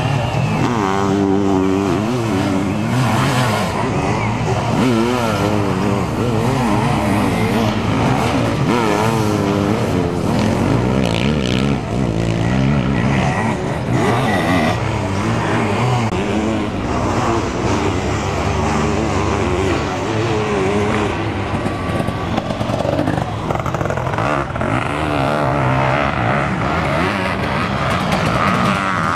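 Several sidecar motocross outfits racing, their motorcycle engines revving up and down and overlapping one another.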